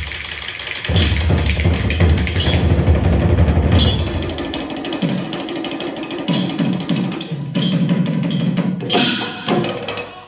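Live folk drum ensemble of barrel drums and tall standing drums beating a rhythm. Deep drum strokes dominate the first half and fall away about halfway through, leaving lighter, higher percussion.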